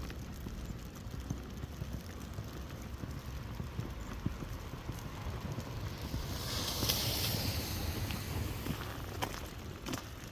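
Footsteps crunching through snow, over a steady low rush of wind on the microphone; about six seconds in a hiss swells for a couple of seconds and fades.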